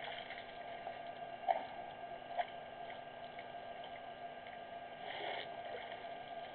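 African elephants drinking at a waterhole: soft water sounds with two short splashes and a brief gush about five seconds in, over a steady background drone.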